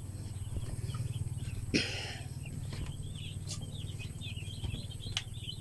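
Many young chickens peeping, quick overlapping high chirps that grow denser through the second half, over a steady low rumble. A short rustling noise about two seconds in and a few sharp clicks.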